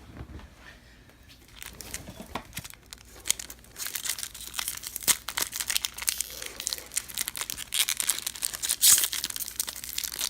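Baseball card packs being torn open, their wrappers crinkling and crackling. It starts quietly and becomes dense and louder from about four seconds in.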